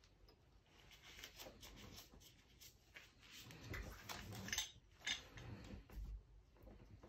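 Faint handling noises of metal HVLP spray-gun parts being picked up and fitted: light rubbing and rustling with scattered small clicks and knocks, the sharpest a few ticks about four to six seconds in.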